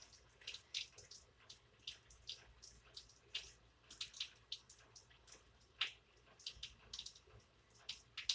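Rain dripping: faint, irregular drops a few times a second, each a short sharp tap, with one louder drop about six seconds in.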